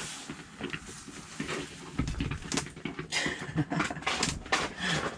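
Irregular crunching footsteps on snow-covered ice coming closer, from about two seconds in, with rustling of the ice shelter's fabric wall.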